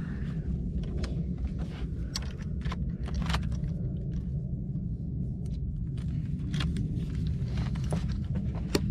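A steady low rumble with scattered small sharp clicks and taps at irregular moments, from hands working plastic trim clips and handling tools.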